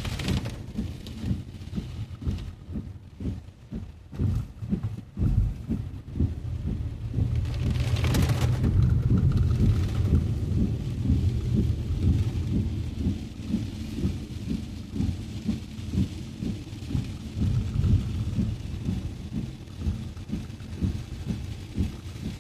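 Heavy rain on a moving car, heard as a low rumble full of irregular thumps. It swells louder from about seven seconds in, with a brief hissing splash around eight seconds.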